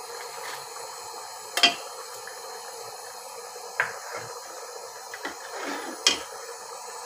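A metal ladle stirring thick dal in a pressure-cooker pot. It knocks sharply against the pot three times, with some scraping and sloshing, over a steady low hiss.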